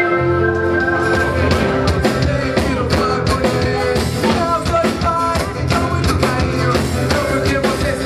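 Live band playing a rock song: a singer over acoustic guitar with a steady drum-kit beat and a bass line.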